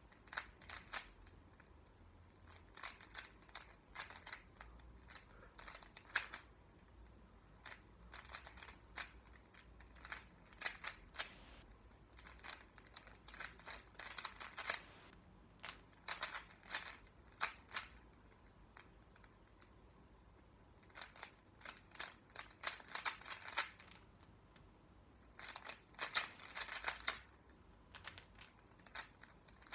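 Rubik's Cube layers being turned by hand: quick runs of plastic clicks and clatters, in bursts of one to three seconds with short pauses between.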